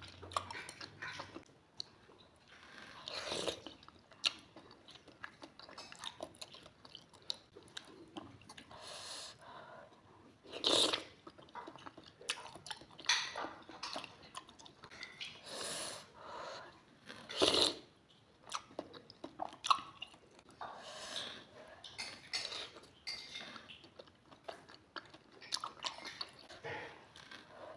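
Close-up chewing and biting of siomay, soft steamed fish dumplings in plenty of peanut sauce, with irregular wet mouth smacks and clicks.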